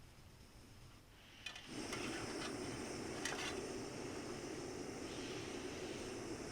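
Small gas camping stove lit for coffee: a couple of clicks about a second and a half in, then the burner running with a steady hiss.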